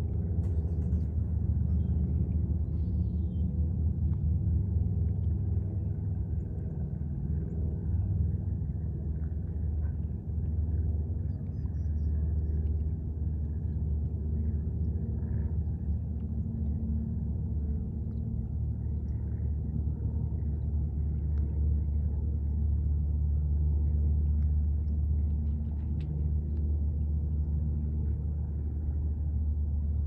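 A motor running steadily at constant speed, a low rumble with a hum in it.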